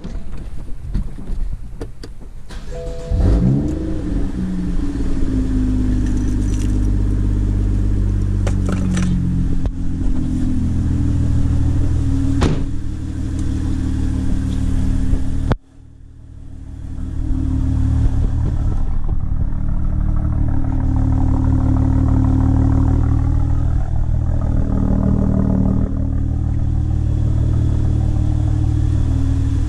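Turbocharged petrol engine of a BMW 1 Series with an upgraded exhaust and stage 1 tune, cold-started: a few clicks, then the engine catches about three seconds in with a short rising flare and settles to a steady idle. About halfway a knock is heard and the sound dips briefly before returning.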